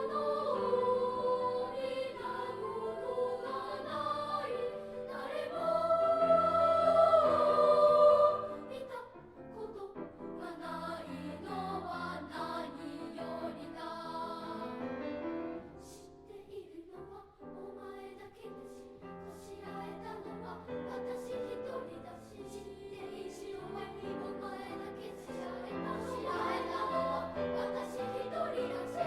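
Elementary school children's choir singing a choral song. The loudest held notes come about six to eight seconds in, then it drops suddenly to a softer passage, is quietest around the middle, and builds again near the end.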